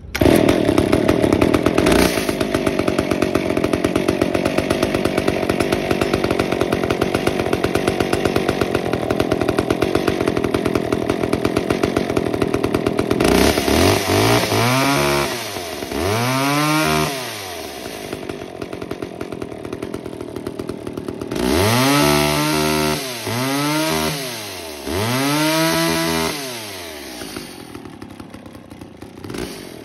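McCulloch MAC 10-10 two-stroke chainsaw on its first start after months of sitting. It catches and runs loud and steady at a high fast idle for about thirteen seconds, then drops back to idle. It is then revved up and down twice, then three more times in quick succession, before settling back to a quieter idle.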